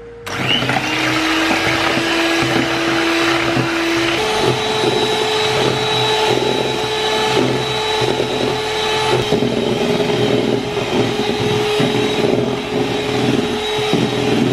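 Electric hand mixer beating egg whites into stiff peaks, its motor whining steadily with the beaters churning in the bowl. About four seconds in, the pitch steps up as the mixer goes to a higher speed.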